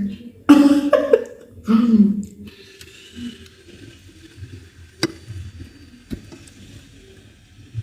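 Two short, loud non-word vocal sounds from a woman in the first two seconds, then a faint hiss with two sharp clicks a second apart.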